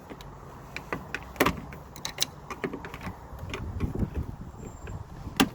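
Scattered clicks and knocks of hands working inside a car door, pressing plastic tabs to unlock the window glass from its regulator. Two sharper knocks come about a second and a half in and near the end.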